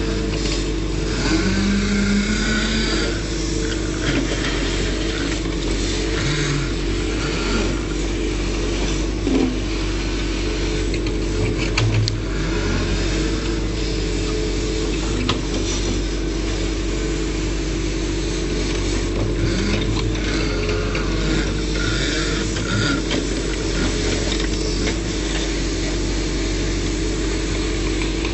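Backhoe loader's diesel engine running steadily as the machine works, with a few clanks and short whines over the constant hum.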